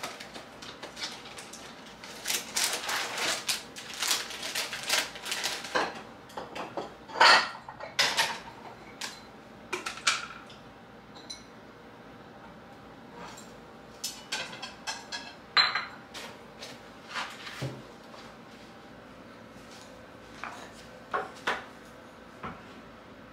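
Dishes, glass jars and utensils clinking and knocking on a kitchen counter as they are handled, in irregular clatters with a few sharp clinks, thinning out to only occasional knocks later on.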